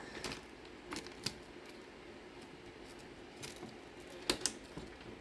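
Scattered light clicks and taps, about half a dozen, from RAM sticks and their plastic being handled while they are fitted into a motherboard's memory slots. The loudest clicks come near the end.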